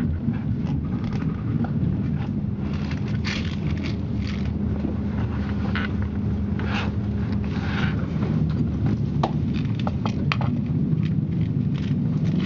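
Moving train heard from inside the carriage: a steady low rumble with a steady hum, and scattered short clicks and rattles.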